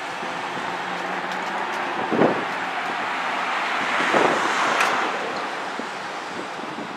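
Road traffic on a busy street: cars and trucks passing with steady tyre and engine noise, and louder swells as vehicles pass close about two and four seconds in.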